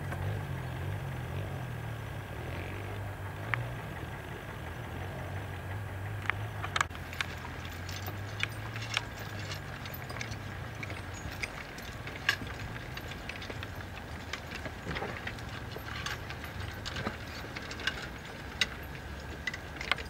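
Irregular sharp metallic clinks and rattles from draft horses' harness chains and a horse-drawn walking plough at work, coming thicker in the second half. A low engine drone underlies the first half and fades out about halfway.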